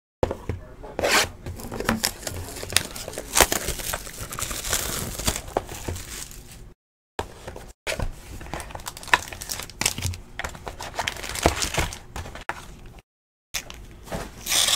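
Crinkling and rustling of foil-wrapped trading-card packs and the cardboard hobby box as the packs are pulled out and handled, with sharp clicks and crackles throughout. The sound cuts out completely for brief moments a few times.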